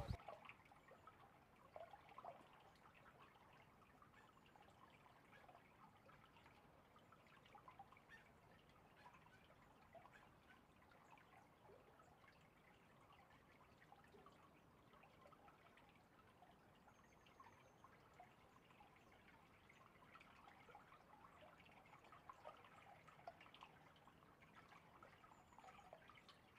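Near silence with a faint trickling and dripping of water.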